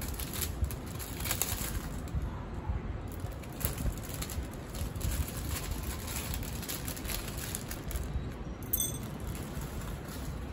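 Clear plastic bags crinkling as they are handled, in short scattered crackles over a low steady rumble.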